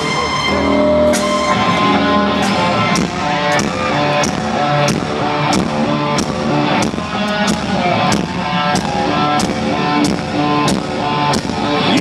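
Live rock band playing an instrumental passage: guitars over a drum kit, with the drum hits landing about twice a second.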